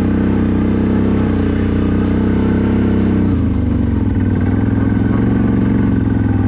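CFMoto 1000 ATV's V-twin engine running at steady revs while riding. A little over three seconds in, the revs drop and the engine holds at a lower pitch.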